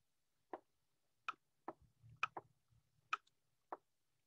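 Light, sharp clicks, about seven spread irregularly over four seconds, from pen strokes as handwriting is put onto a digital slide.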